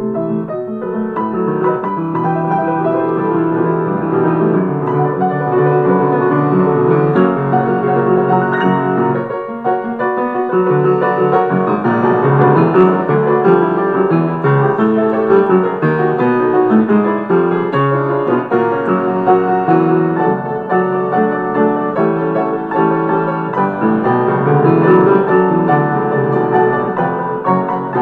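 Piano music playing continuously in quick runs of notes, with a brief dip about nine seconds in.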